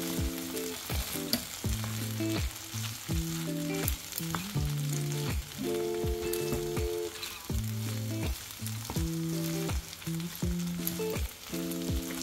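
Fried rice sizzling in a pan on low heat and being stirred with a wooden spatula. Background music of low held notes, changing every second or so, runs underneath and is the loudest sound.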